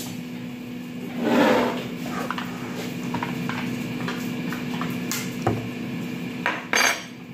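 A metal spoon scraping and tapping yogurt out of a small plastic cup, heard as light scattered clicks with a sharper tap and a short rustle near the end, over a steady low hum.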